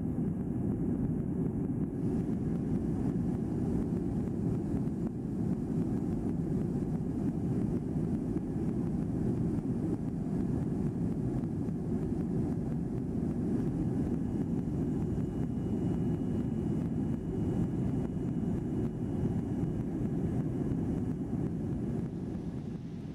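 Steady drone of a high-wing airliner's engines and airflow, heard inside the passenger cabin in flight.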